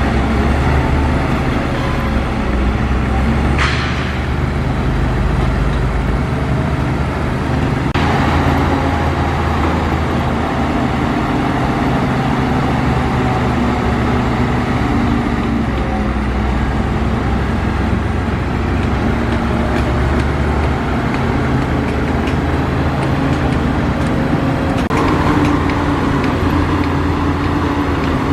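Heavy diesel earthmoving machinery running steadily, its engine note shifting as it works, with two brief sharp noises about 4 and 8 seconds in.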